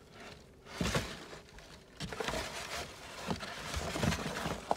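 Cardboard egg-crate flats being handled and shifted in a plastic tub: rustling and scraping with a few light knocks, thicker from about two seconds in.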